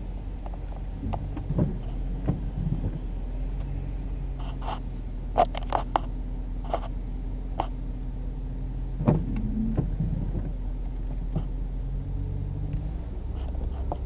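Steady low engine hum and rumble heard from inside a vehicle's cab as it sits and then pulls slowly away, with scattered light clicks and taps.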